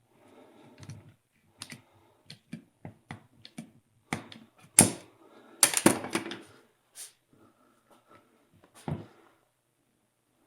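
Hand tools and metal brake-caliper parts clicking and knocking as the caliper is worked on, in an irregular series of light clicks. About halfway through come two louder clattering hits, and there is one more knock near the end.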